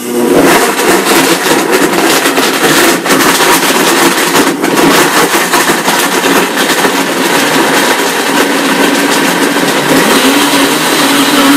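Blendtec blender with a WildSide+ jar running its Smoothie program. The motor starts abruptly and churns frozen banana, frozen blueberries, apples and carrots with apple juice. A steadier motor hum sets in about ten seconds in.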